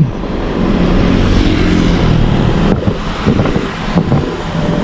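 Motorcycle engine running as the bike rides along, with wind and road noise on the microphone; the engine's steady hum is clearest in the first half.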